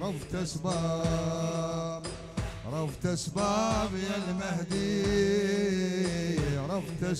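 Male reciters chanting a bandariya latmiya into microphones over a steady low drone, with a regular beat from the crowd's chest-beating.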